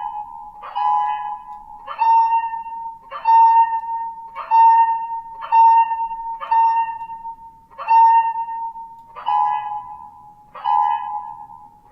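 A sci-fi alarm made in Serum 2's spectral oscillator from a looped, pitched-down bird call. A steady tone near 1 kHz pulses about once every 1.2 seconds, and each pulse opens with a quick upward swoop.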